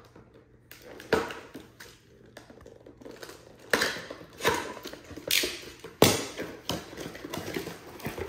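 Unboxing handling: a lithium battery pack being taken out of its packaging, with several sharp knocks and short rustles of cardboard and plastic.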